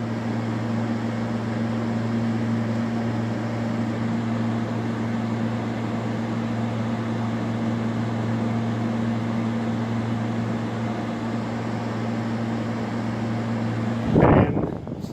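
LG 12,000 BTU air conditioner running: a steady hum under the even rush of its fan.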